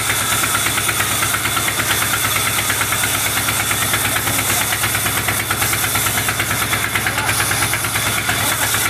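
Vertical log band saw running and cutting through a long tree trunk as it is fed along the table: a steady machine sound with a rapid, even pulsing and a high steady whine.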